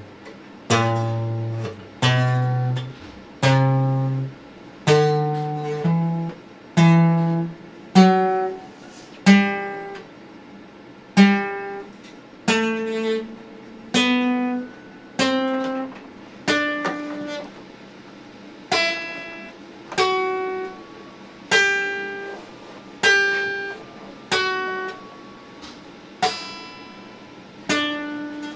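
Acoustic guitar played slowly, one plucked note or chord at a time, each left to ring and fade before the next. The line moves from low bass notes to higher notes about a third of the way through.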